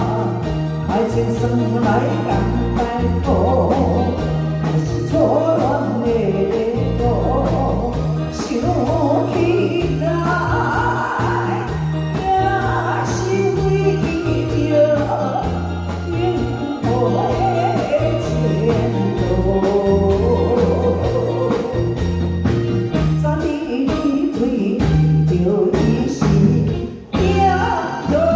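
Live band of drums, electric guitar, bass guitar and keyboard playing a song with a singer singing over it, with a short drop in the music about a second before the end.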